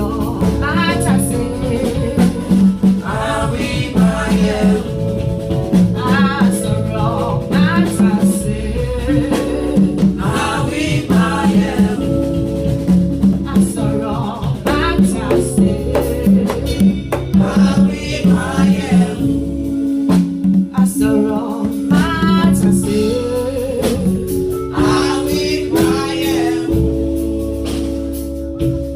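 Gospel worship music: singing over held keyboard chords.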